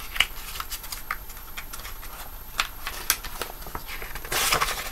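Comic book pages being flipped and handled: soft paper rustling with scattered light ticks, and a louder rustle near the end.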